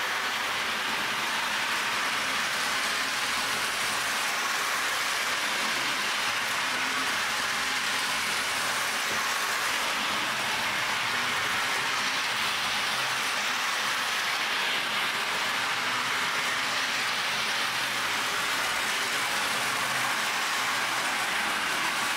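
Lionel LionChief James O-gauge model locomotive running on its track, the electric motor and wheels on the rails giving a steady, even running noise.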